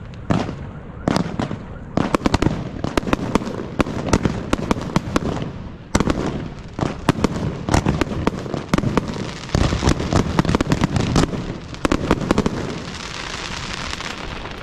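Aerial fireworks display: a rapid, irregular string of sharp bangs and shell bursts, many in quick clusters. Near the end the bangs thin out into a steady hiss.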